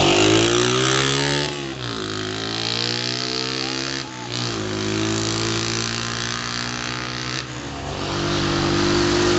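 Small petrol engine of a seated motor scooter running under throttle, its pitch climbing, then falling away and picking up again three times as the rider eases off and accelerates, and settling to a lower, steady note near the end.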